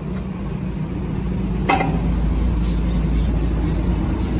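Steady low mechanical rumble, with a single sharp metallic clink from metal parts being handled about a third of the way in.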